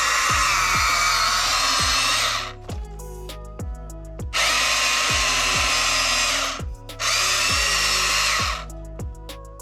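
Electric motors of a Huina 1592 RC excavator whirring in three bursts of about two seconds each, their pitch shifting slightly within each burst, over background music with a steady beat.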